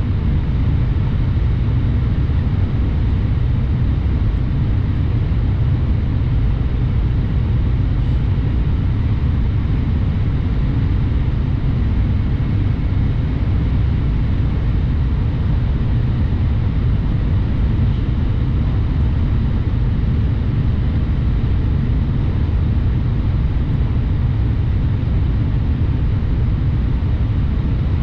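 Shinkansen running at speed, heard inside the passenger car: a steady, low rumble of running noise that does not change.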